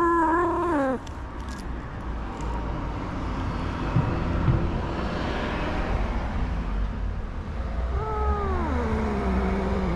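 Stray cat meowing twice: a short call in the first second, then a long call near the end that falls steadily in pitch. Between the calls, traffic passes with a steady rumble that swells in the middle.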